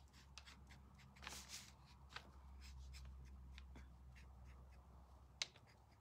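Near silence: a fine paintbrush working paint onto a thin wooden chicken-wire cutout, making faint scattered ticks and light scratches. There is a soft swish about a second and a half in and a sharper click near the end, over a faint low hum.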